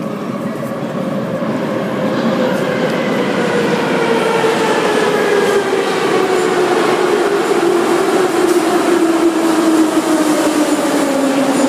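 Metro train pulling into the station: a steady rumble growing louder with an electric motor whine that falls slowly in pitch as the train brakes.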